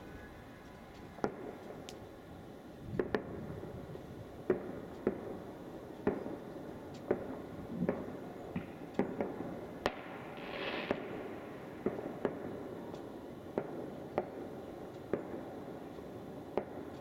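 Distant fireworks and firecrackers going off across a neighbourhood: sharp pops scattered irregularly, about one a second, over a steady background hum, with a short hiss about ten seconds in.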